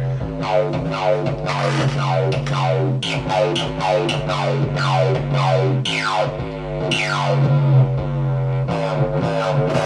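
Drum and bass bass line played from an E-mu sampler, built from a distorted Roland 808 sample layered into a low sub layer and a higher buzzy layer. A heavy sustained bass note sits underneath while the upper layer's filter cutoff sweeps down on each new note, giving the line a constant moving, growling character.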